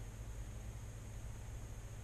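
Steady low electrical hum under an even hiss, with a faint high-pitched whine; no alert tones or voice.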